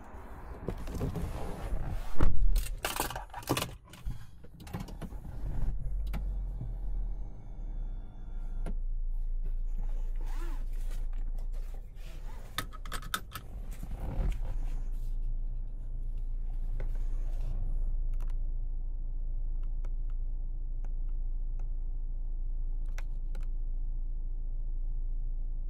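Handling sounds in the cabin of a 2025 MG HS: scattered clicks, scrapes and knocks, with one loud thunk about two seconds in. From about nine seconds on a steady low hum sets in, with a few light clicks over it.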